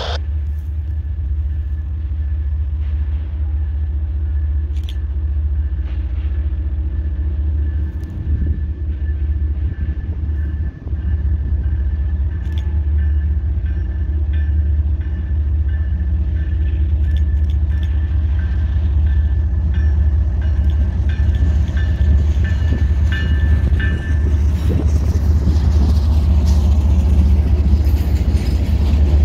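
Diesel-hauled intermodal freight train approaching and passing close by: a steady low rumble of the locomotive and rolling stack cars that grows louder toward the end, with a thin steady high tone through much of it.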